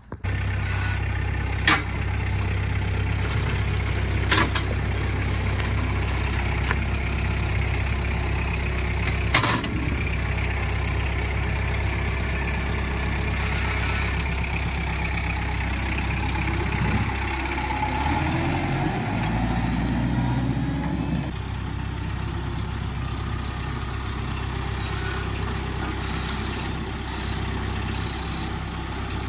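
A heavy engine running steadily, with a few sharp knocks in the first ten seconds. About two-thirds of the way in, the engine note dips and then climbs back before settling slightly quieter.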